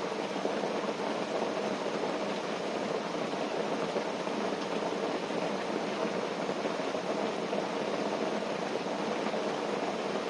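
Steady rain falling on a tent, an even hiss with no pauses.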